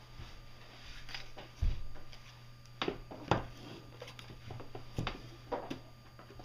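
Clear plastic zip-top bag rustling and crinkling as it is handled, with a dull thump about a second and a half in and several sharp knocks and clicks of things set down against a cardboard box and tabletop. A low steady hum runs underneath.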